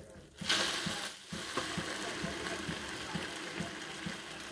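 An egg frying in hot oil in a pan: a steady sizzle that swells about half a second in and dips briefly near one second.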